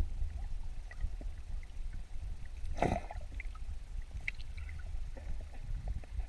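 Muffled underwater water noise: a steady low rumble with scattered small clicks, and one louder whoosh about three seconds in.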